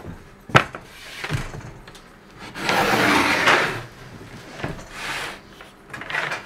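A wooden controller box being set down on a plywood workbench and shifted into place. A sharp wooden knock comes under a second in, then a second knock, a scraping slide of wood on wood of about a second in the middle, and a few lighter bumps.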